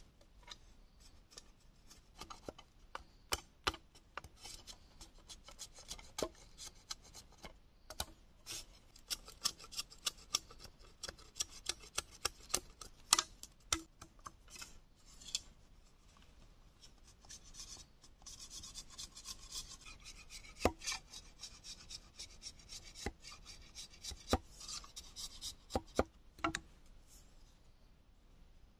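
A machete cutting green bamboo: a run of sharp knocks and clicks as the blade chops and splits the tube, then a longer stretch of scraping as the blade is drawn along a bamboo strip, with more knocks near the end.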